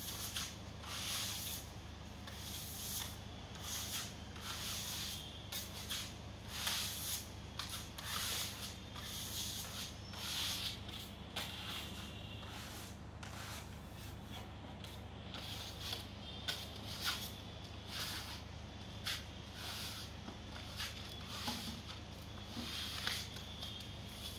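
Hand trowels scraping screeding paste across a rendered wall in repeated short strokes, over a steady low hum.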